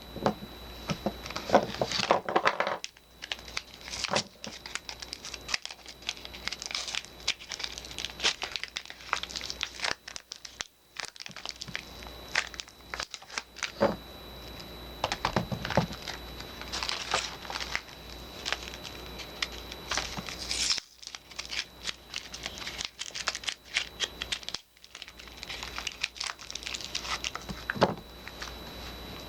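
Soap packaging crinkling and tearing as bars of soap are unwrapped, in dense irregular crackles with a few short pauses.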